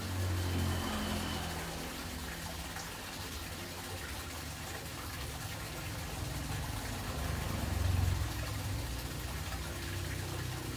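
Steady running-water noise of an aquarium's water circulation, over a low hum that grows louder about eight seconds in.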